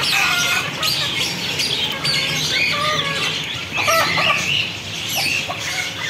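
Chickens clucking, with many other caged birds chirping and squawking. The short calls overlap throughout.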